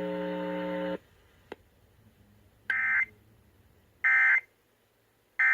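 Emergency Alert System end-of-message data tones: three short bursts of warbling digital squawk, about a second and a half apart, marking the end of the tornado warning broadcast. Before them a steady buzzing tone cuts off about a second in.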